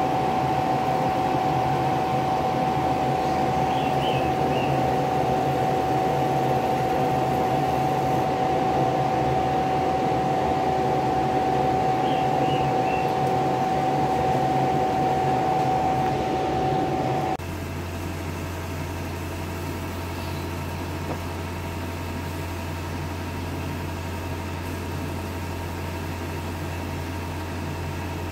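Laser engraving machine running steadily, a constant machine noise with a high whine over it. About seventeen seconds in the whine stops and the sound drops to a quieter, lower hum.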